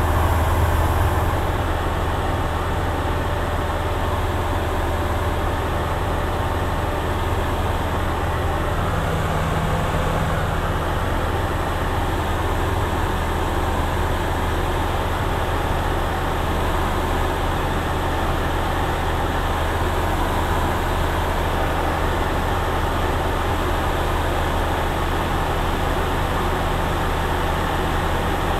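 Steady cabin drone of a single-engine propeller plane in flight: a deep, even engine hum with airflow hiss over it, heard from inside the cockpit.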